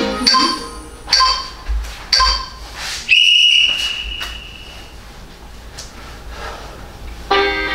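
Workout interval-timer signal: three short beeps about a second apart, then a longer, higher steady tone that fades, marking the change between an exercise round and a rest.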